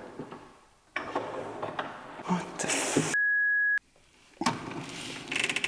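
Knocks, clicks and rattles of hands fitting a pull-out kitchen bin mechanism into a cabinet, cut about halfway through by a single steady bleep tone lasting well under a second, with all other sound dropped out beneath it like a censor bleep. A quick run of ticks follows near the end.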